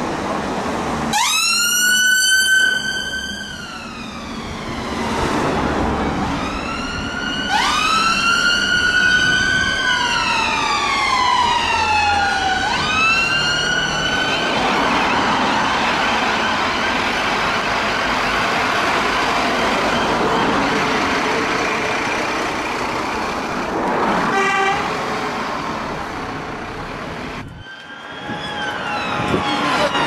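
Electronic sirens of two NHS ambulances wailing, their rising and slowly falling tones overlapping as they pass through traffic. A short rapid yelp comes about 24 seconds in, and near the end, after a brief break, another siren starts up.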